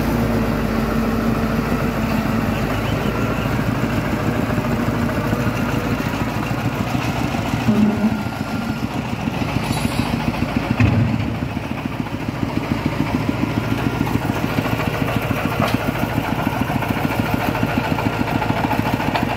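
A machine engine running steadily at idle with an even, rapid chugging pulse, with two brief louder swells about eight and eleven seconds in.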